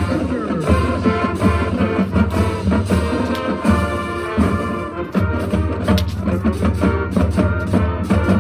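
Marching band playing: brass and saxophones sounding sustained chords and melody over a bass line, with sharp drum strokes keeping the beat.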